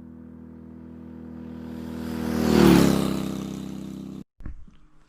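70cc two-stroke motorized-bicycle engine passing by: its steady note grows louder to a peak about two and a half seconds in, drops in pitch as it goes past, then fades. It cuts off abruptly about four seconds in, followed by a few faint clicks.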